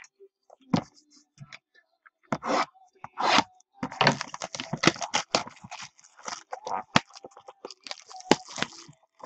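Clear plastic shrink-wrap being torn and crumpled off a sealed box of trading cards. A few separate crackles come first, then steady crinkling and tearing from about four seconds in.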